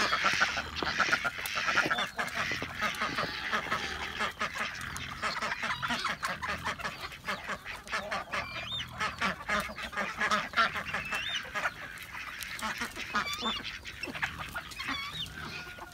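A flock of domestic ducks and chickens being fed corn: a constant chatter of quacks and short calls, busiest in the first few seconds.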